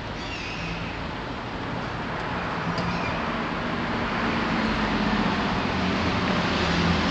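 Road-traffic noise that grows steadily louder, with a low hum underneath, and a few faint bird chirps in the first few seconds.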